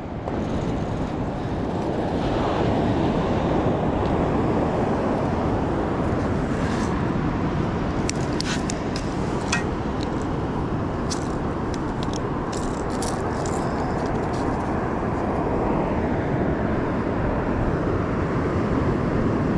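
Steady roar of ocean surf breaking on the beach, with a scatter of small clicks and ticks about halfway through.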